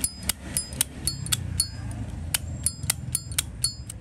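Zippo-style metal lighters being handled: a string of irregular sharp metallic clicks and clinks with a brief bright ring, about three a second.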